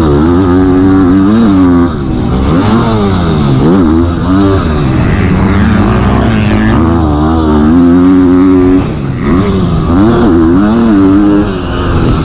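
KTM 250 motocross bike engine, heard from on board, revving hard under full throttle and dropping back again and again as the rider shifts and corners. The pitch climbs and falls many times, and it dips briefly about four times where the throttle is shut.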